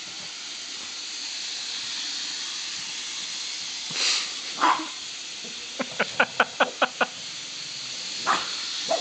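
A pug huffing and then giving a quick run of about eight short, sharp barks, about six a second, with a couple more yips near the end, agitated by a moving model train. A steady hiss lies underneath.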